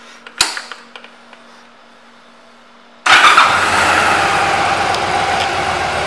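A few clicks, then about three seconds in the 2005 Yamaha V Star 1100's air-cooled V-twin starts with a sudden burst and settles into a steady idle.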